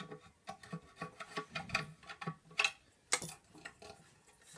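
A tool scraping rust off the top of the motor bearing inside a Numatic vacuum cleaner's motor unit. It is heard as a run of irregular short scrapes and clicks, with a couple of louder ones about three seconds in.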